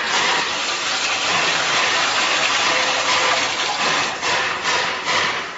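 Oil pouring in a steady, splashing gush that tapers off near the end.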